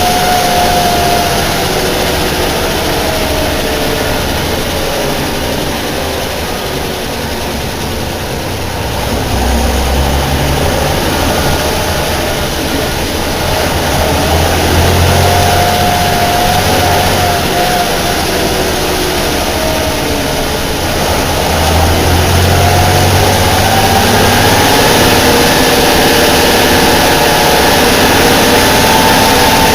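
Air-cooled Deutz BF6L 913 C turbo diesel of a bus running, its engine speed rising and falling several times, with a whine that glides up and down with it.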